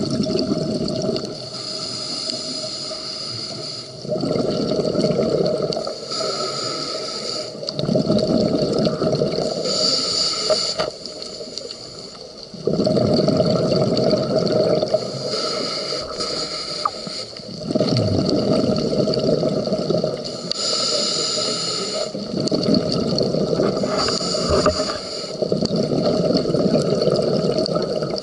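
Scuba diver breathing through a regulator underwater: a short hissing inhale, then a longer burst of exhaled bubbles, repeating about every four to five seconds.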